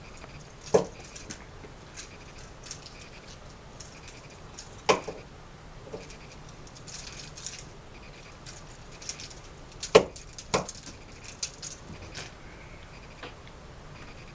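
A cat's rattle ball toy jingling and rattling in irregular spurts as it is batted and rolled about. There are scattered clicks and a few sharper knocks, the loudest about ten seconds in.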